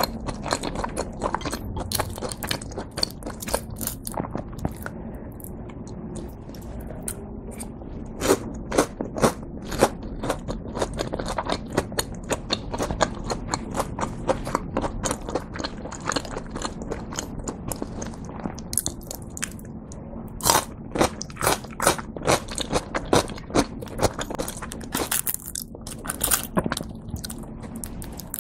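Close-miked chewing of crispy breaded fried cheese pork cutlet (cheese tonkatsu), the fried crust crunching in irregular runs of sharp crunches between softer chewing.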